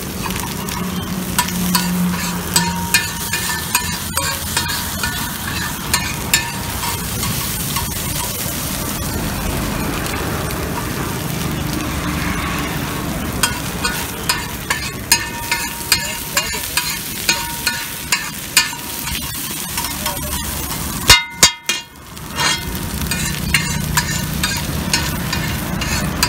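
Marinated chicken pieces frying in oil on a hot flat iron griddle (tawa): a steady sizzle, with a metal spatula scraping and clicking against the griddle again and again. The sound briefly drops out about five seconds before the end.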